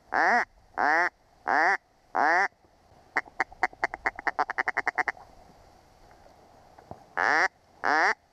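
A hunter's mallard duck call (mouth-blown reed call) quacking loudly: four evenly spaced long quacks, then a fast run of about twenty short clucks lasting about two seconds, a pause, and two more quacks near the end. This is a hail call followed by a feed chuckle, blown to draw ducks in to the hide.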